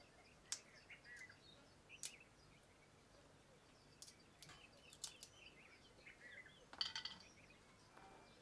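Peanut shells cracking open between the fingers as raw groundnuts are shelled by hand: several sharp cracks a second or two apart, with a quick cluster about seven seconds in. Faint bird chirps in the background.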